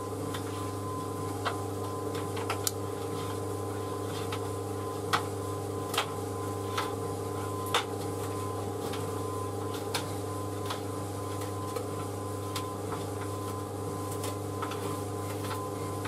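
White Knight C38AW compact reversing tumble dryer running: a steady motor and drum hum, with light irregular clicks and taps as the load tumbles inside the drum.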